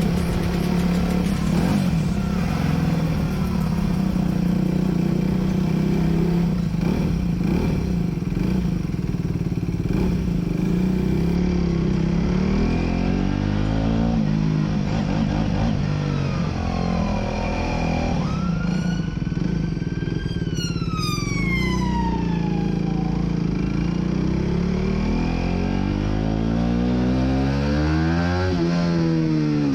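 Aprilia RS4 125 single-cylinder four-stroke engine under way, its pitch rising and falling with the revs. About two-thirds of the way through, a high note climbs and then falls away over a few seconds. Near the end there is a quick rev up and back down.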